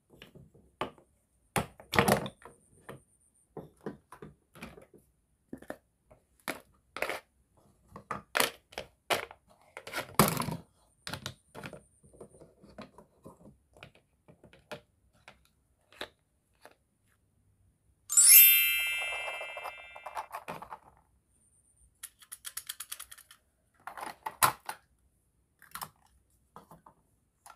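Wooden and plastic toy food pieces clicking and knocking as they are picked up and set down on a plastic tray, in irregular sharp clacks. About two-thirds through, a bright ringing chime sounds once and fades over about two seconds.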